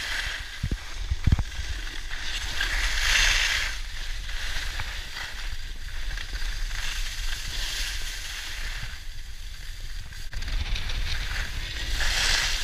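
Ski or snowboard edges scraping over groomed snow in turns down a slope, the hiss swelling every few seconds, with a steady wind rumble on a moving microphone. Two low knocks come about a second in.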